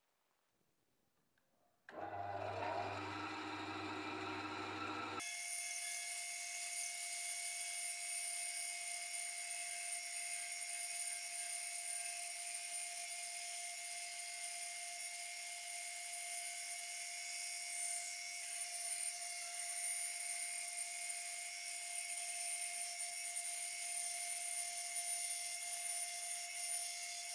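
Near silence for about two seconds, then an electric bandsaw running and cutting through a thick block of wood along a traced curve. The sound changes abruptly about five seconds in and then holds as a steady, even whine.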